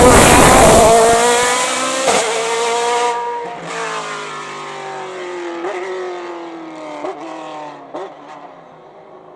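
Race car passing close at full throttle, then pulling away up the hill, its engine note fading into the distance with several quick gear changes along the way.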